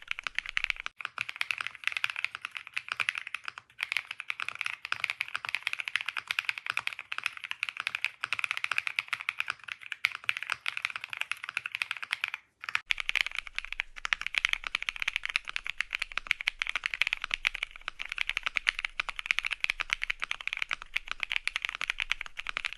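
Fast, continuous typing on a Womier ERA75 aluminium-cased mechanical keyboard: dense key clacks with short pauses about a second in, near four seconds and near the middle.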